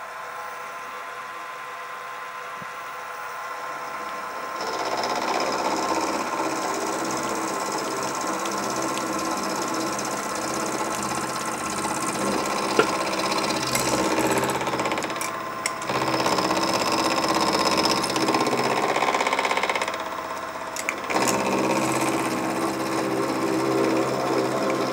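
Sieg SX2P mini mill running, its end mill face-milling a brass bearing half held in a vise. The cutting noise sets in about four or five seconds in and eases off briefly a few times, with occasional sharp ticks.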